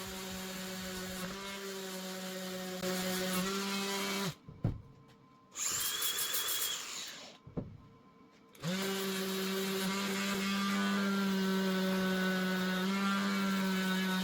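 A power tool's motor running at a steady pitch. It cuts out twice for about a second in the middle, with a short higher-pitched whirr between the stops.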